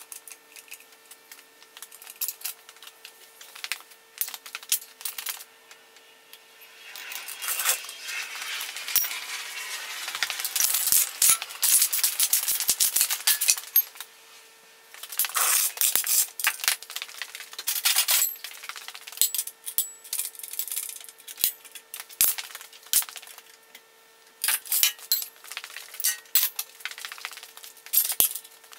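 Hand work with a trolley jack, steel bar and wooden blocks: scattered metallic clinks and knocks, with a stretch of rough scraping several seconds long about a quarter of the way in, over a faint steady hum.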